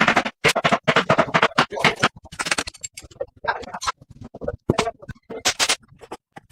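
Workshop hand-tool work on a dynamo: a quick, irregular run of short scrapes and clicks, some in rapid bunches and some single, with brief silent gaps between them.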